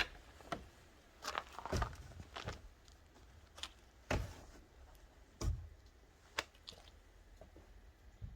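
Irregular knocks and clicks in a small room, some with a low thud, coming every second or so and thinning out toward the end.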